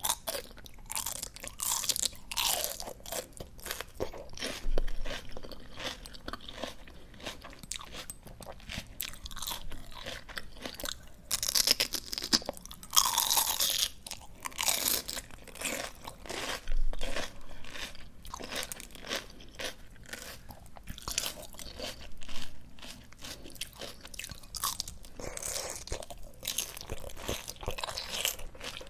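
Close-miked chewing of crisp, juicy raw greens: wet crunches and crackling pops from bite after bite, in irregular clusters with louder crunches near the middle.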